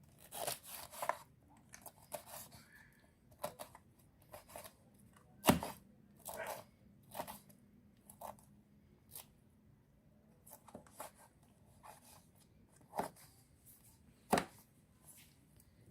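Knife cutting a pineapple into cubes: irregular slicing strokes with a few sharp knocks, the loudest about five and a half seconds in.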